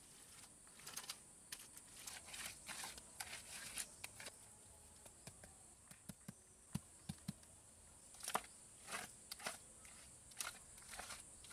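Faint scraping over wet cement, then sharp taps and knocks of bricks and a trowel being set and worked into the mortar, the taps coming in clusters in the second half.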